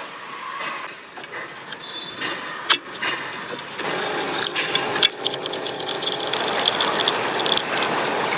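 A few sharp clicks, then a car engine starting up and running from about four seconds in, growing slowly louder.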